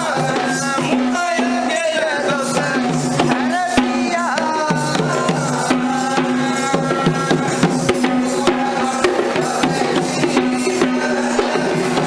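Background music with percussion: drums and tambourine-like strikes over a steady drone and a wavering melody.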